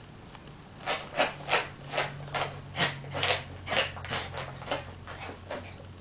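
A Pomeranian's claws scraping a hardwood floor in a quick run of about a dozen scratchy strokes, two or three a second, as the small dog paws at the floor.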